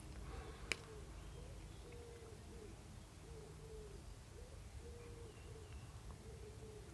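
A pigeon's soft, low coos, repeated about once a second, each a short note that rises and falls. One sharp click comes about two-thirds of a second in.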